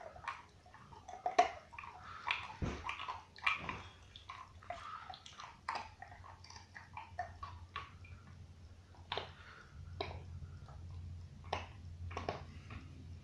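Dog gnawing and chewing a bone: irregular clicks and crunches of teeth on bone, the sharpest about a second and a half and three and a half seconds in.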